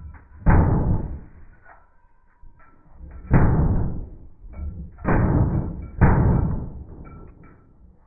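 Four shots from an all-metal single-action semi-automatic pistol, unevenly spaced: one about half a second in, another about three seconds later, then two close together a second apart, each followed by a short echo.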